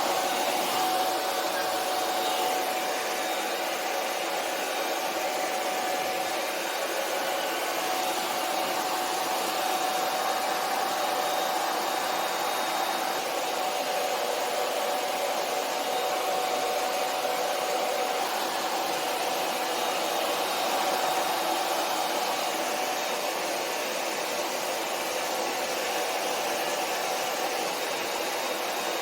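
Hair dryer running steadily, drying a freshly washed wig: an even rush of air with a thin steady tone in it.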